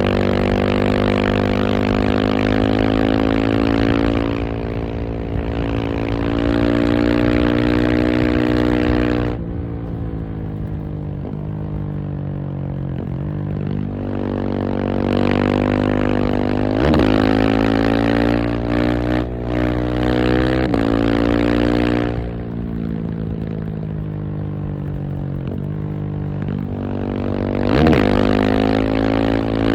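KTM 690 SMC R's single-cylinder engine being ridden hard, its pitch rising and falling repeatedly as the throttle opens and closes, with two brief sharp cracks, one about halfway through and one near the end.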